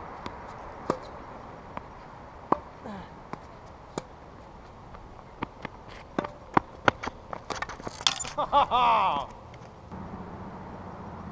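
Tennis rally: a tennis ball struck by rackets and bouncing on a hard court, sharp pops and knocks at irregular intervals, coming thickest about six to eight seconds in. A short wavering squeal about eight seconds in is the loudest sound.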